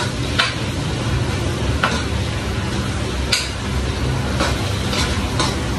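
Metal ladle scraping and clinking against a frying pan as food is stirred, about six strokes at uneven intervals over a steady low rumble.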